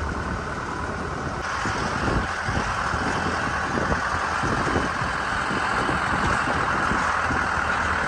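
Open safari canter (truck-bus) driving along a rough forest track: steady engine and rolling noise with irregular low jolts and rattles, growing louder about a second and a half in.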